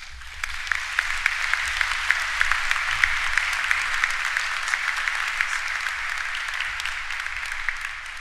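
Audience applauding: many hands clapping in a dense, steady patter that starts at once and thins out near the end.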